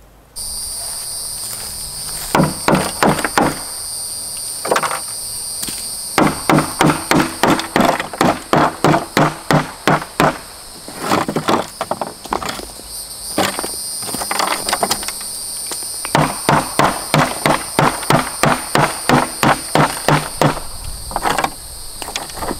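Hammer blows knocking dried mortar off the underside of a plastic shower base. The blows come in quick runs of about three or four strikes a second, with short pauses between runs.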